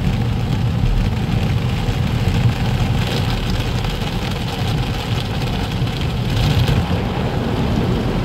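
Automatic car-wash spinning brushes sweeping over the windscreen, heard from inside the car as a dense, steady low rumble with a fast flutter. A hiss of water and brush strips on the glass swells louder about three seconds in and again about six and a half seconds in.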